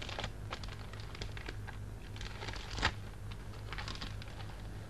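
Faint paper rustling and scattered small clicks as a package is handled and opened, with one sharper click a little past the middle, over a steady low hum.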